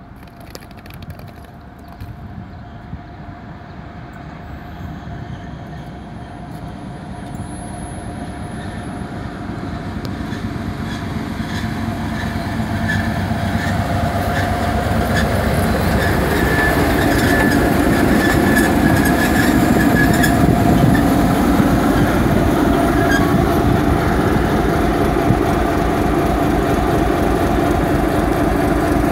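ČD class 749 'Bardotka' diesel-electric locomotive hauling a passenger train into the station. Its diesel engine and the train's running gear grow steadily louder as it approaches over the first fifteen seconds or so, then run loud and steady as the locomotive draws slowly alongside.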